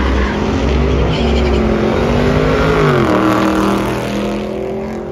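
A car engine running loud, its pitch creeping up and then dropping about three seconds in as the sound fades.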